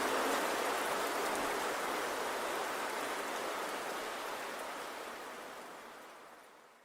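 Steady rain falling, an even hiss of drops, fading out gradually over the last few seconds.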